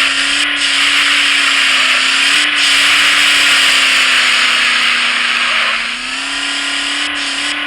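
Car engine running under load with loud tyre and road noise; its pitch sags slightly about five seconds in, then rises again a second later as the revs pick up.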